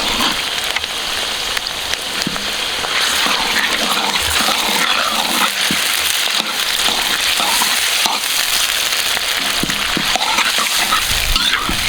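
Chicken pieces sizzling steadily in hot oil with onion, ginger and green chilli, just added to the pan, with a few light knocks now and then.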